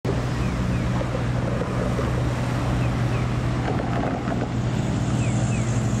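Steady road traffic noise, cars driving through an intersection, with wind rumbling on the microphone. Faint short high chirps come through now and then.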